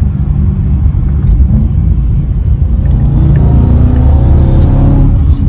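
BMW E92 M3's 4.0-litre V8 pulling hard in fifth gear, heard from inside the cabin over a heavy low road rumble. Its note climbs steadily from about three seconds in as the revs rise.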